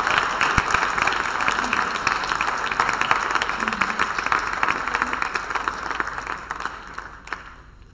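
Audience applauding: dense clapping that dies away near the end.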